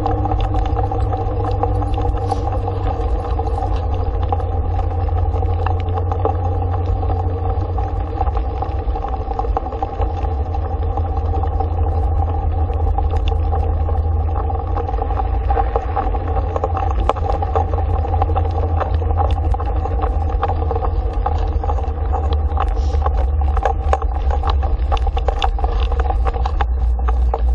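Dog scooter rolling fast over a dirt road: a steady rumble of tyres and wind buffeting the scooter-mounted camera, with a steady hum and scattered ticks of grit under the wheels, the ticks coming more often in the second half.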